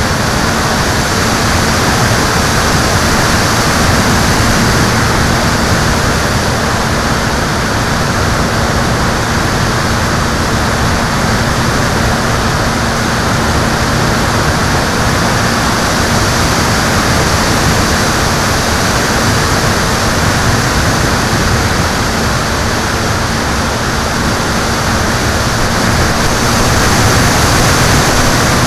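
Steady rush of wind over the microphone of a camera mounted on a small aircraft in flight, with a faint steady hum underneath.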